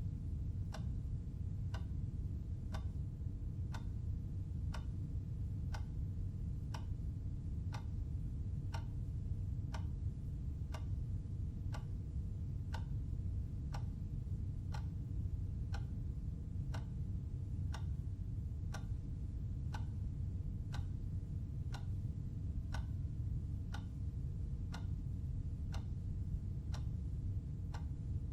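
Clock ticking steadily at about two ticks a second, over a steady low rumble.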